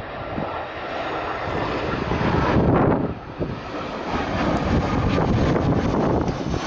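A fixed-wing aircraft's engines running, an even roar that swells and dips unevenly, with a heavy low rumble of wind on the microphone.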